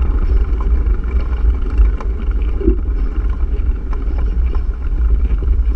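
Wind buffeting the microphone of a mountain bike's action camera as the bike rides over a dirt trail, a steady low rumble with a few sharp knocks and rattles from the bike over bumps.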